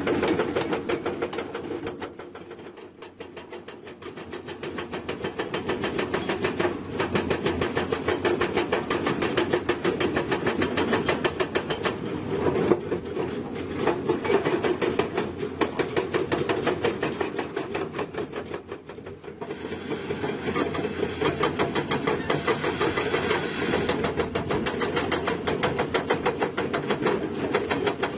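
Excavator running with a rapid, steady mechanical clatter. It fades down twice and comes back to full loudness.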